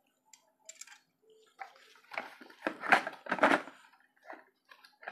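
Cardboard packaging and small plastic pieces being handled: irregular rustles, scrapes and light knocks, with two louder clatters about three seconds in.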